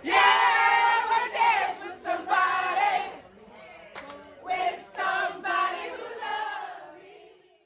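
A small group of people singing along loudly and unaccompanied at a silent disco: the music plays only in their wireless headphones, so only their voices are heard. The singing is loudest in the first few seconds, comes back in short bursts, then fades out near the end.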